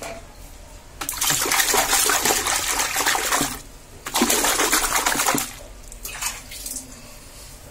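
Water pouring into a plastic tub of soapy washing water, raising suds, in two long pours with a short break between them.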